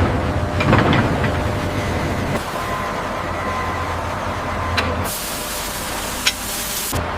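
Heavy-machinery factory noise: steady machine running with metallic clanks, the sharpest just under a second in. About five seconds in, a hiss starts suddenly, lasts about two seconds and cuts off.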